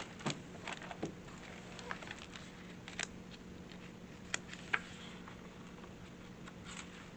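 Faint, scattered clicks and light rustles of a picture book's paper pages being handled and turned, over a steady low electrical hum.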